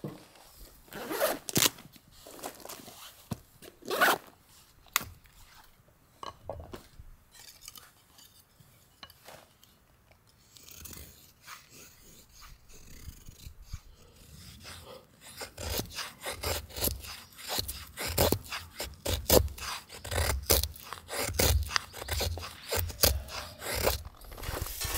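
Wood handled with a few sharp knocks and clacks, then a knife carving a feather stick. From about halfway, quick repeated scraping strokes shave curls off a stick of wood, with dull knocks against a wooden stump block.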